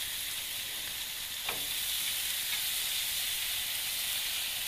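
Chicken breasts sizzling on hot aluminum GrillGrates rails over a gas grill at about 400 degrees, a steady hiss. A single short click of the spatula about a second and a half in.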